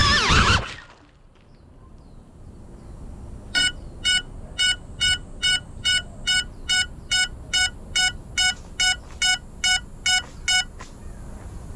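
Crashed FPV drone's lost-model alarm beeping: short, even beeps at about two and a half a second, starting a few seconds in and stopping near the end. Before that, a loud sound with shifting pitch cuts off abruptly about half a second in, as the drone comes down.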